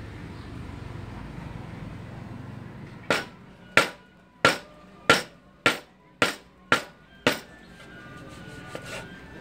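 A knife chopping raw pork against a wooden cutting board: eight sharp strikes a little over half a second apart, each with a brief metallic ring, starting about three seconds in. Background music plays underneath.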